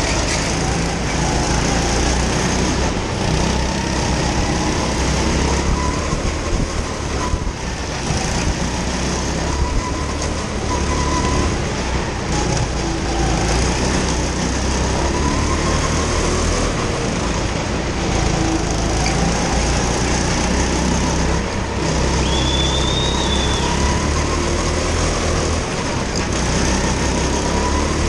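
Small go-kart engine running hard, heard from on board the kart, its pitch rising and falling as it accelerates and lifts through the corners. A brief high squeal about two-thirds of the way through.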